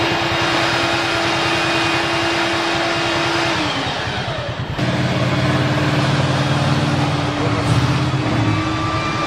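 Heavy vehicle engines running: a steady drone that sags about four seconds in, then an abrupt cut just before five seconds in to another engine running with a deeper hum.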